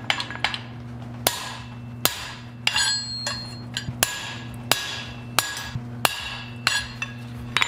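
Hand hammer striking a spring fuller set on red-hot mild steel bar on an anvil, a steady run of sharp metallic blows about one and a half a second, each ringing briefly as the fuller presses a groove into the hot bar. A steady low hum runs beneath.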